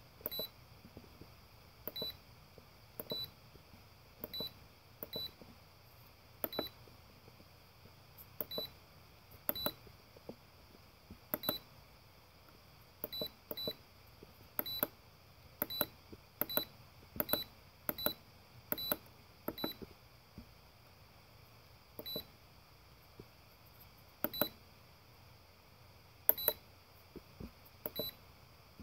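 Eachine D800 LiPo charger giving a short high beep at each button press as its menus are stepped through, each with a soft button click. About thirty beeps come at an uneven pace, some in quick pairs or threes.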